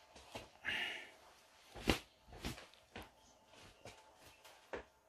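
Aluminium stovetop moka pot being handled and set down on a stone worktop: a few light metal knocks and a brief scrape, the sharpest knock about two seconds in.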